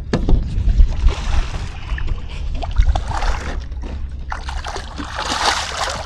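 Water splashing as a hooked fish thrashes at the surface and is scooped into a landing net, loudest about five seconds in, over a steady low rumble of wind on the microphone.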